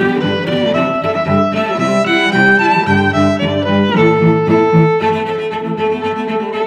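Background music: a slow bowed-string melody, violin over cello, moving note by note and settling on a long held note about two-thirds of the way through.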